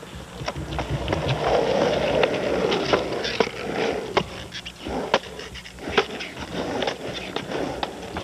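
Skateboard on an asphalt street: the wheels roll and the board clacks, giving a run of irregular sharp clicks and knocks.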